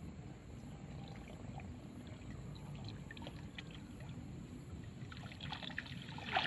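A nylon cast net being hauled in through shallow river water, with light sloshing and small splashes that thicken toward the end. It builds to a louder rush of water near the end as the bundled net is lifted out and water streams from it, over a steady low rumble.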